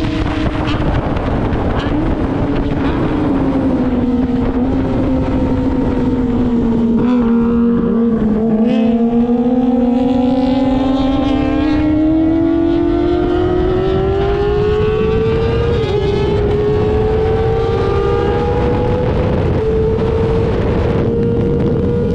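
Kawasaki ZX-25R's four-cylinder engine with an aftermarket R9 exhaust, heard from the saddle with wind rushing past. The revs ease down for the first eight seconds or so, then climb steadily under acceleration. About sixteen seconds in the pitch drops at a gear change, then rises again.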